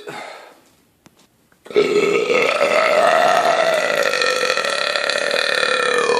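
A man's long, drawn-out belch, starting just under two seconds in and held at an even loudness for several seconds. The tail of an earlier belch dies away at the very start.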